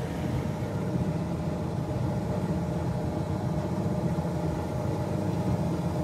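Polytron Zeromatic top-loader's wash motor running steadily with a low hum, wired straight to the mains without the timer and turning in one direction: a bench test showing the motor works.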